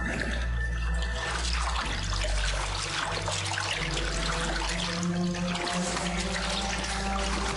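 Water splashing and sloshing as people wade through a flooded stone tunnel, over a low droning music score.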